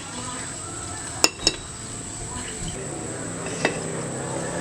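A metal utensil clinking against a cooking pan, twice in quick succession about a second in and once more later, over a steady background hiss.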